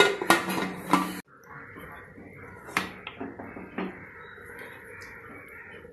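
Aluminium pressure-cooker lid being fitted and closed: a quick run of metal clinks and clatter in the first second, then a few lighter knocks as the lid is settled and the handles are brought together.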